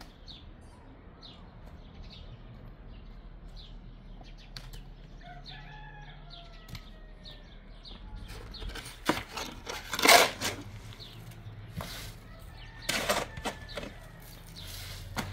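Chickens clucking faintly, then several loud, short, noisy bursts in the second half, the loudest about ten seconds in.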